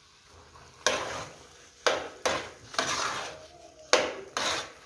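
A long metal spoon stirring and scraping thick jiló and cassava-flour mash in an aluminium pot, in about six separate strokes beginning about a second in.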